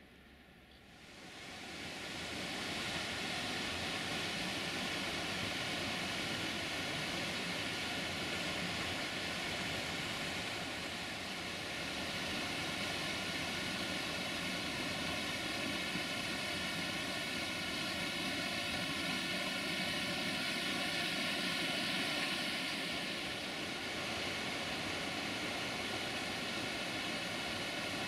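Steady rush of falling water from the Vadu Crișului waterfall, fading up over the first two seconds.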